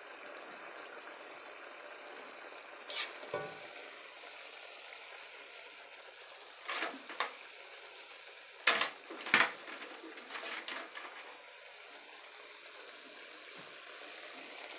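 Metal spoon clinking and scraping against a wok several times, the loudest strikes about nine seconds in, over the low steady hiss of chicken simmering in spicy soy sauce.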